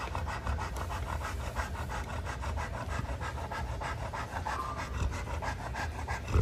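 A pregnant Boerboel panting quickly and evenly, several breaths a second.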